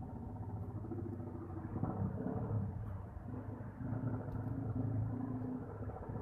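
Motor vehicle engine running with a low, steady rumble, heard from inside a vehicle driving through a flooded street.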